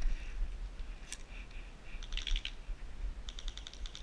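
Airsoft gun firing in two short bursts of rapid clicks, the second about a second after the first, with wind rumbling on the microphone.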